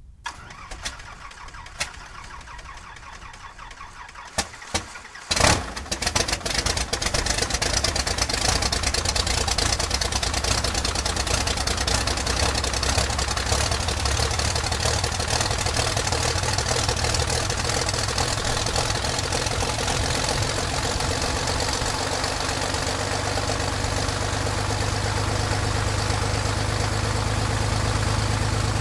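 Cold start of a Lycoming AEIO-540 six-cylinder aircraft engine in an Extra 300. The starter cranks for about five seconds with a few single pops, then the engine catches with a loud burst and runs steadily.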